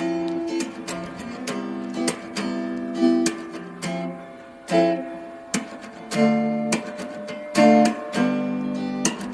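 Acoustic guitar music: strummed chords and plucked notes, with the chords changing every second or so.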